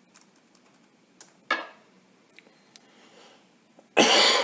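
Mostly quiet, with a short noise about a second and a half in, then a person clearing their throat loudly near the end.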